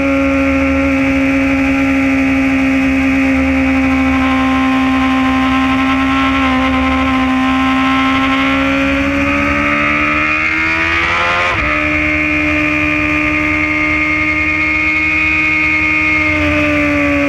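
Motorcycle engine at track speed, heard from on the bike with wind noise: a steady engine note through a long corner, rising as it accelerates, a sharp break in pitch about eleven seconds in as it shifts gear, then the note falling near the end as the throttle eases off.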